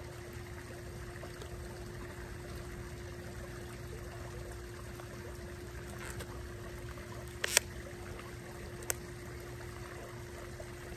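Plastic packaging being pried open, with two sharp clicks, the first about seven and a half seconds in and the second a second and a half later, over a steady background hiss with a faint hum.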